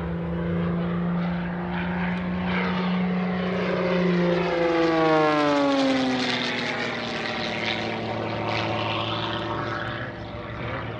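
MXS aerobatic monoplane's piston engine and propeller running hard through a manoeuvre, with its pitch falling as it passes close by about five seconds in, where it is loudest.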